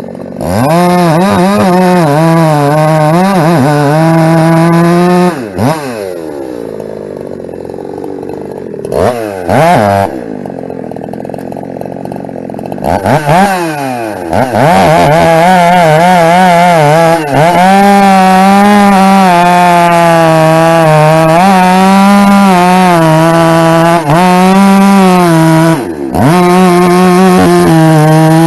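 Ported Husqvarna 372 two-stroke chainsaw cutting firewood at full throttle, its revs wavering as the chain loads in the wood. It drops back to idle after about five seconds with a couple of quick throttle blips, then goes into a long cut from about halfway that runs to the end with a few brief dips in revs.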